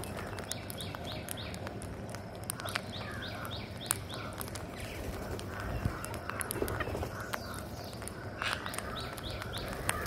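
A flock of rose-ringed parakeets feeding, giving series of short rising chirps and squawks, with scattered sharp clicks as beaks peck at rice grains.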